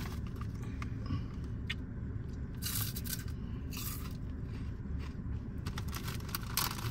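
Pork rinds crunched and chewed in the mouth, several short crunches, with the plastic snack bag crinkling as a hand reaches in for more.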